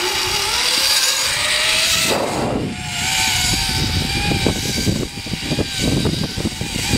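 Zip line trolley wheels whining along the cable. The whine rises in pitch over the first two seconds as the rider picks up speed, then holds steady. Wind rushes and buffets the microphone.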